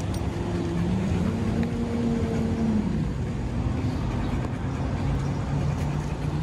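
Motor vehicle engine running nearby, its hum rising in pitch about a second in and falling back around three seconds, over a steady background of traffic noise.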